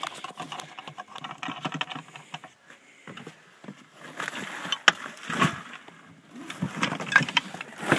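Rummaging through a car trunk: irregular rustling, clicking and clattering of items being shifted, with a couple of sharper knocks about halfway through.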